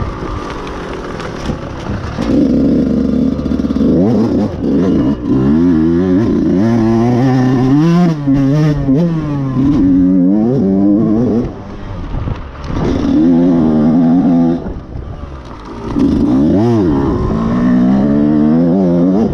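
Dirt bike engine revving hard on a hill climb, its pitch climbing and falling again and again with the throttle, dropping off briefly twice in the second half. The owner says the engine is about ready for a new top end.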